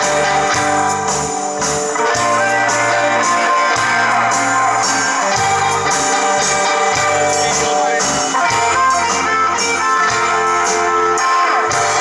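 Rock band playing live, an instrumental guitar passage over bass and a steady drum beat, with no singing.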